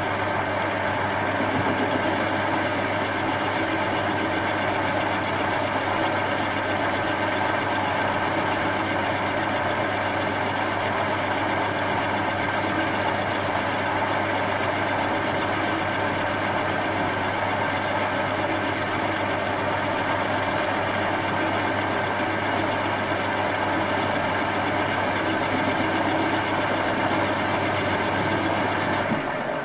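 Metal lathe running steadily with a low hum, its turning tool taking a power-fed cut along a bar of cast aluminium. Near the end the lathe is switched off and the sound falls away as it spins down.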